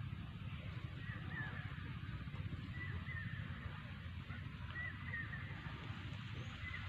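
Short bird calls repeating every second or two, over a steady low rumble of noise on the microphone.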